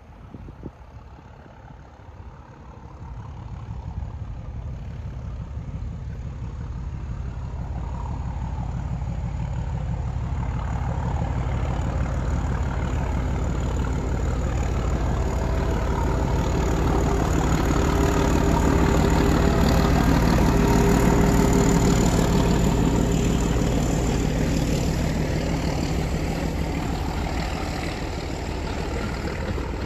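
A train approaching and passing close by, its heavy engine running with a steady low hum. The sound builds from faint about three seconds in, is loudest about twenty seconds in, then eases slightly.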